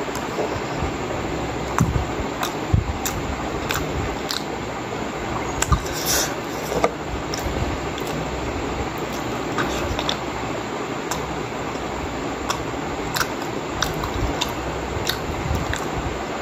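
A person chewing steamed pork momo dumplings, with scattered wet clicks and smacks of the mouth, over a steady background hiss.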